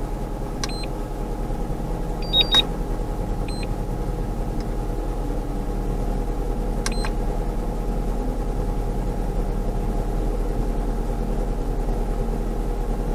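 Car engine idling, heard from inside the cabin as a steady hum. A few short high beeps sound over it in the first seven seconds or so.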